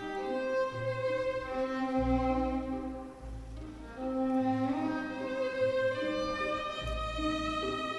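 Orchestral program music led by violin over cello and strings, a slow melody of long held notes that eases off briefly a few seconds in.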